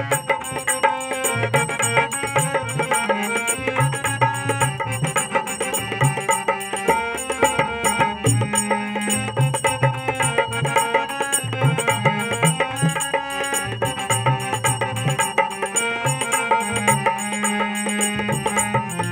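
Harmonium and dholak playing together: sustained harmonium reed notes over a steady hand-drum rhythm with repeated low bass strokes.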